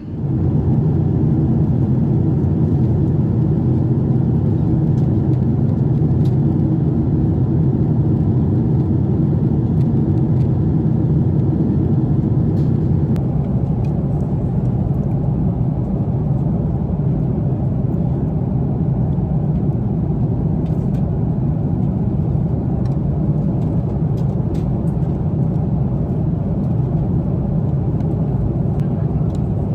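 Airliner cabin noise: a steady low drone of the jet engines and air flow inside the passenger cabin, starting abruptly just after the opening.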